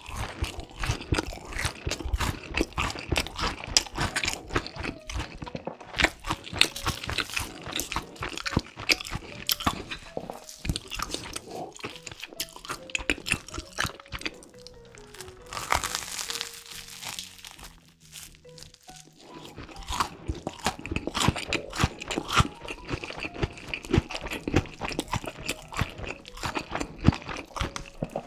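Close-up crunching bites and chewing of a crispy Flamin' Hot Cheetos–crusted pork cutlet, a rapid run of sharp crunches that thins out for a few seconds in the middle, where a brief hiss comes through. Soft background music plays underneath.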